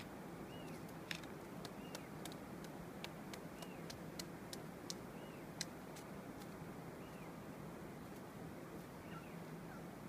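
Magellanic woodpecker pecking at a tree branch: irregular single sharp taps, closer together in the first half, over a steady outdoor hiss.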